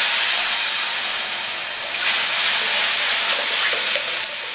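Tomato-tamarind rasam liquid being poured into a hot stainless steel kadai of tempering, splashing and hissing as it meets the hot oil and spices, with a short lull about two seconds in.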